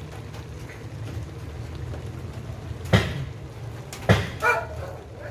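A dog barking: a sharp bark about three seconds in, then two more close together about a second later, over a steady low hum.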